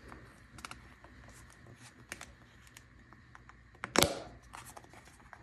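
Small cardboard product box being pried open by hand: faint scratches and taps of fingers and nails on the card, with one sharp snap of the card about four seconds in.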